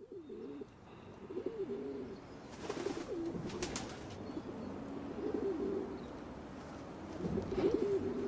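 Pigeons cooing, several overlapping low throaty coos, with a brief rustle about three seconds in.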